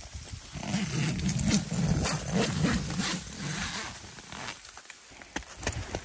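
Rustling and scuffing as a person climbs out through the door of a snow-covered tent, with a few sharp crunches near the end.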